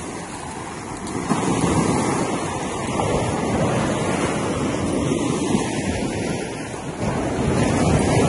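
Outdoor rushing noise of wind and sea surf, growing louder about a second in and then swelling and easing.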